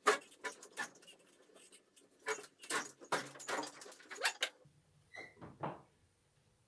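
Ropes and pulleys creaking and squeaking under the weight of a small fiberglass speedboat hull as it is hauled over by hand on ropes. A quick run of sharp creaks fills the first four and a half seconds, then a few fainter squeaks follow.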